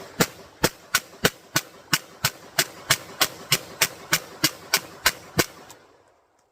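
3D-printed MAC-11-pattern 9mm pistol firing a fast, evenly spaced string of shots, about three a second. The string stops a little before the end.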